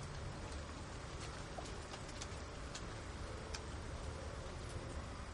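Haflinger horse grazing: irregular crisp snaps of grass being torn off and chewed, over a low steady hum.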